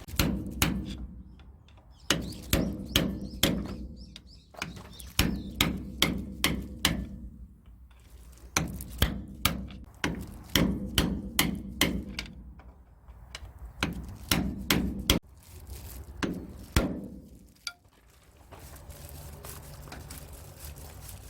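Hammer blows on the steel parts of a Scania dump truck's rear spring and center-bushing assembly, struck in quick runs of several ringing strikes with short pauses between. Near the end the hammering stops and a low steady hum is left.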